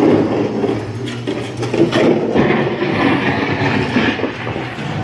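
Mr. Toad's Wild Ride dark-ride car rumbling and rattling along its track.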